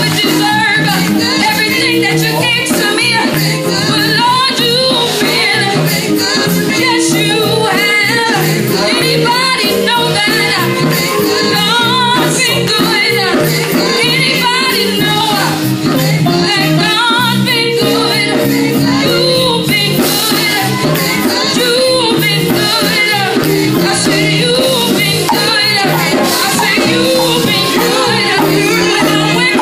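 Gospel vocal group, men's and women's voices together, singing into microphones over keyboard accompaniment, amplified through loudspeakers.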